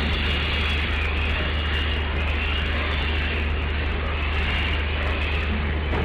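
Steady low mechanical hum with an even hiss over it, unchanging and without distinct knocks or calls: the background drone of an enclosed farrowing shed.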